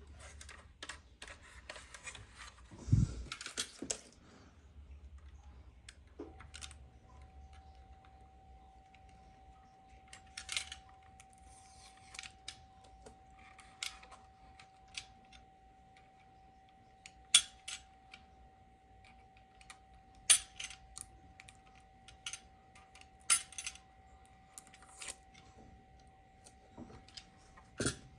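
Scattered sharp clicks and taps of small hard parts being handled, with a heavier thump about three seconds in. A faint steady hum comes in about six seconds in and continues.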